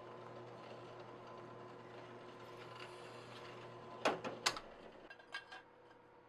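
Drill press motor running with a steady hum. About four seconds in, two sharp clicks of metal tools on the workpiece are followed by a few lighter clicks, and the hum then drops away.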